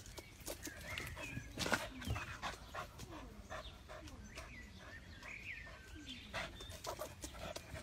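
A dog whining in short, wavering high calls at a squirrel it has chased up a tree, among many sharp clicks.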